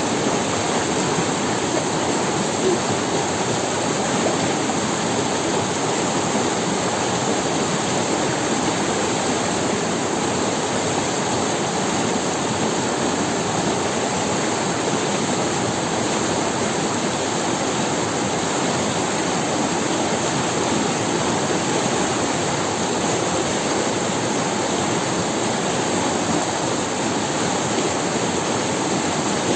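Shallow forest river running over stones: a steady, even rush of water.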